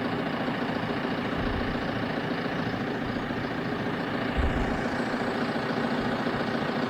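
JCB's diesel engine running steadily at idle, with a low thump about four and a half seconds in.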